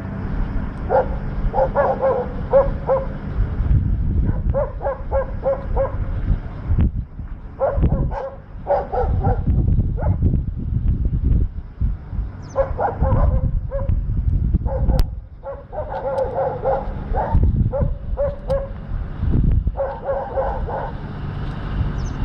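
Dogs barking at brown bears, in quick runs of several barks with short pauses between the runs, over a steady low rumble.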